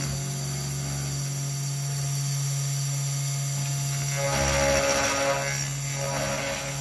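A 3018 desktop CNC router's spindle runs with a steady hum while its endmill cuts the outline of a wooden disc; the cutting noise swells twice, about four and a half and six seconds in.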